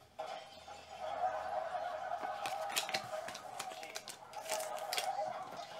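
Trading cards and a plastic card holder being handled and set down on a table: light clicks and slides, heaviest in the middle, over a steady mid-pitched tone.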